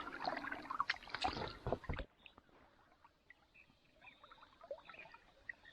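Water splashing and sloshing against a small boat on a river, cutting off abruptly about two seconds in, followed by faint dripping and trickling.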